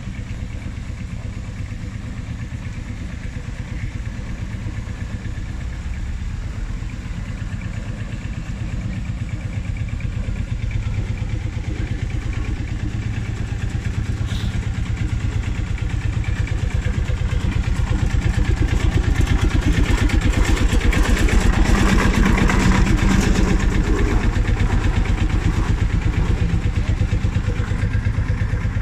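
Marshall single-cylinder two-stroke diesel tractor running as it drives in, with a rapid, even pumping beat. It grows louder as it approaches and is loudest about two-thirds of the way through.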